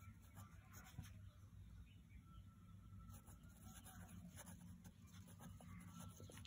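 A pen writing on paper: faint scratching strokes as a word is written out by hand.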